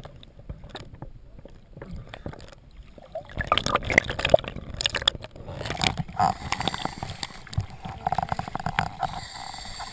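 Water splashing and sloshing around an underwater camera as it breaks the surface, with irregular knocks and drips on the housing that grow busier about three seconds in.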